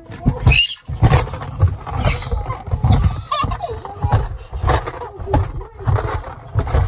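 Irregular thumping, rubbing and scraping right against the phone microphone, with muffled voices among it.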